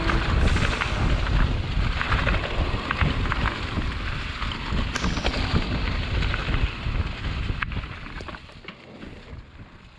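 Mountain bike descending a leaf-covered dirt trail, heard from an action camera on the rider: wind buffeting the microphone, tyres rolling over dirt and leaves, and scattered rattles and knocks from the bike over bumps. The sound fades out over the last couple of seconds.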